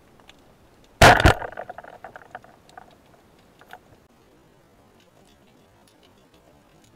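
A wooden speargun with rubber bands fires underwater about a second in: one loud, sharp snap, then a rattling clatter that fades over about a second and a half as the shaft strikes the fish. Faint scattered clicks follow.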